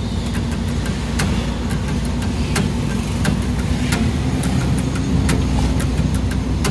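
Engine and road rumble of a moving vehicle heard from inside its cabin, with scattered light clicks over the steady drone.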